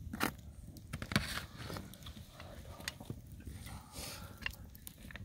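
Quiet eating sounds: a few scattered sharp clicks of mussel shells and a utensil on a plate, with some chewing.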